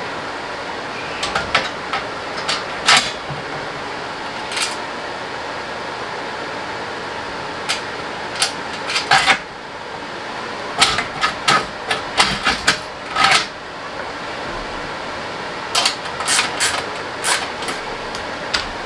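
Scattered metallic clinks and knocks of hand tools and parts being handled, in clusters, over a steady hum.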